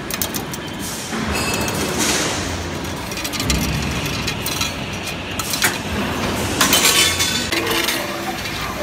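CNC 3D wire bending machine running: the bending head clacks and the steel wire clinks against the table as it is fed and bent. The sharp clicks come irregularly, with the loudest clattering about seven seconds in.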